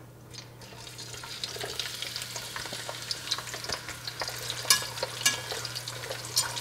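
Onion layers, garlic cloves and halved serrano chiles sizzling in hot oil in a stainless steel saucepan, the sizzle building about half a second in. A slotted metal spatula clicks and scrapes against the pan as they are stirred.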